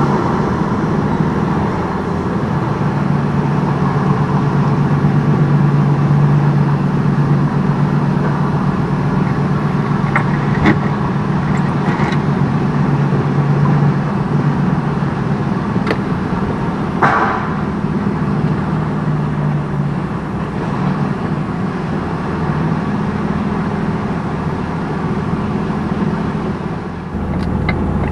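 Semi-truck's diesel engine running steadily, with a few short clicks along the way; the engine note shifts near the end.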